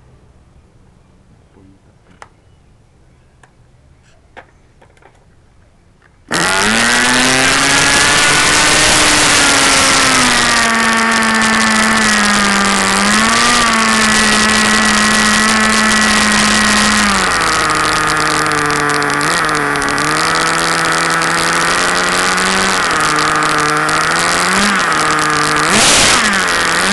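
Small gasoline engine of an RC car, coming in abruptly about six seconds in and running steadily at a high pitch. In the second half it settles lower and is blipped up in short revs several times, with a louder rev near the end.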